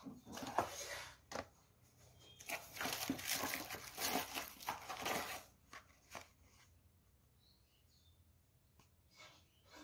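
Crumpled brown packing paper rustling and crinkling inside a cardboard box as a hand digs through it: a short burst at the start, a longer, louder stretch from about two and a half to five and a half seconds in, then a few faint rustles.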